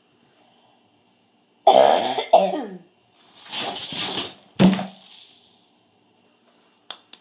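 A cat growling and hissing at another cat: a falling growl about two seconds in, then a long hiss, then a short sharp spit. A few faint clicks come near the end.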